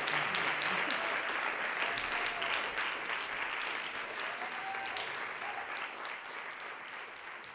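Audience applause, a dense patter of clapping that gradually fades toward the end.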